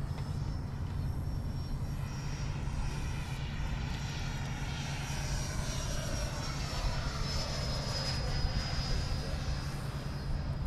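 90mm electric ducted fan of a Freewing F-22 Raptor model jet whining in flight, swelling as the jet passes and dropping slightly in pitch as it goes by. Wind rumbles on the microphone underneath.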